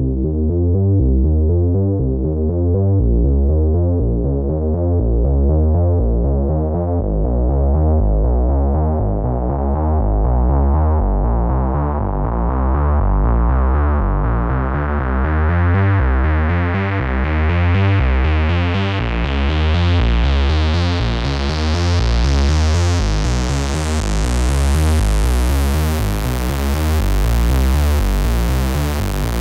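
u-he Diva software synthesizer playing a repeating mono bass sequence, mostly low bass notes, which grows steadily brighter.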